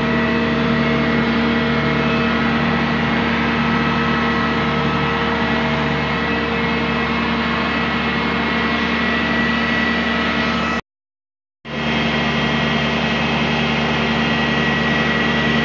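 A crane's engine running steadily while it hoists a rooftop HVAC unit, a constant drone. The sound cuts out completely for under a second about eleven seconds in, then resumes unchanged.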